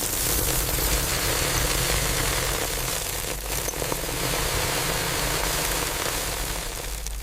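Steady industrial machinery noise of a rotary sugar dryer drum turning: a low rumble under an even hiss that holds level throughout.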